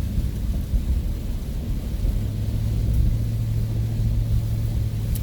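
Ford van driving at road speed, heard from inside the cab: a steady low rumble of engine and road noise, with a steady low hum that comes in about two seconds in.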